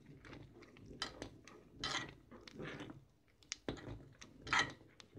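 A metal spoon stirring through milky sago kheer in a metal pan, scraping the bottom and sides in a few irregular strokes about a second apart.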